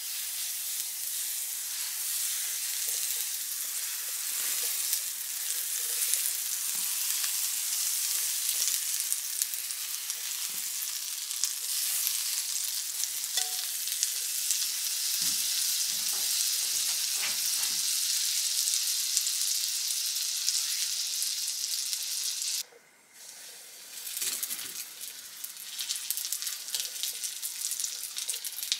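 Butter sizzling in a frying pan over a charcoal grill: a steady, crackly hiss. About two-thirds through it breaks off for a moment and comes back a little quieter with scattered pops, as floured fish fries in the butter.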